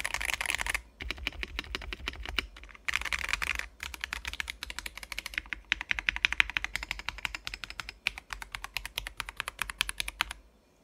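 Typing on a Keychron V2 mechanical keyboard fitted with Akko CS Jelly White switches: a quick, steady run of clacky keystrokes, with two short flurries of very rapid presses near the start, stopping just before the end.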